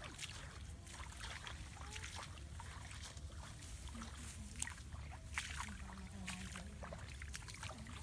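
Tall grass rustling and swishing in many short crisp bursts as people walk through it, over a low steady rumble.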